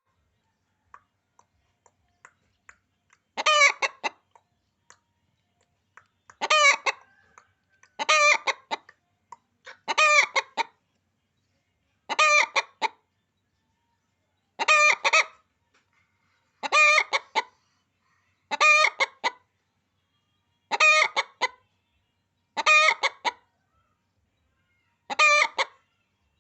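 A domestic hen calling in short, loud, harsh squawks of a few quick notes each. Eleven calls come at a steady pace of about one every two seconds, after a few faint clicks.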